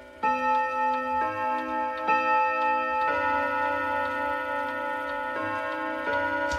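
ODO wall clock chiming on the hour, its hammers striking the gong rods in a melody of single notes about one a second, each note ringing on over the next. The ticking of the movement carries on underneath.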